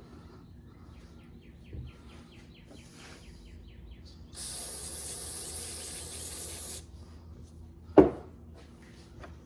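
A steady spraying hiss lasting about two and a half seconds as the chainsaw's spark plug is cleaned. A quick run of light ticks comes before it, and a single sharp knock follows near the end.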